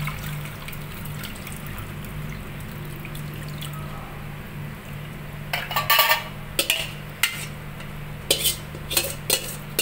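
Curdled milk being strained into another pot, the whey running through. From about halfway, metal pots and utensils knock and clink sharply several times.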